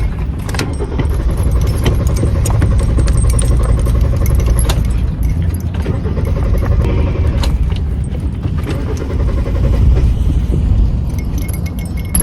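Car engine being cranked over by the starter motor without catching, a steady churning with short dips: the car won't start.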